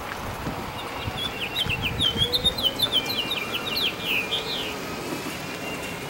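A songbird singing a quick run of short, high chirps, starting about a second in and lasting about four seconds.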